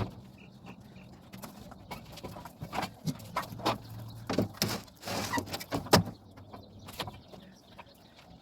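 A series of knocks, clunks and scrapes of things being handled, loudest about six seconds in, over a steady low hum.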